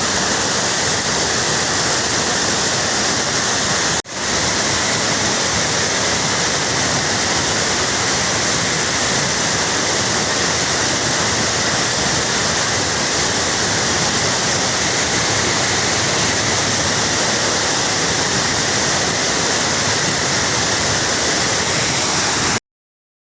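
Loud, steady rush of a mountain stream in spate: a surge of flood water coming down from the hills over a waterfall. The rush breaks off for an instant about four seconds in and cuts off suddenly near the end.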